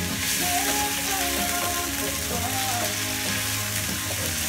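Sliced zucchini and onion sizzling steadily in olive oil in a frying pan as they are stirred with a wooden spatula, with background music playing.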